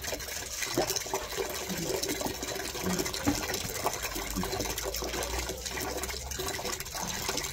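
Water splashing and dripping while a wet rottweiler is scrubbed by hand and rinsed with water poured from a plastic mug.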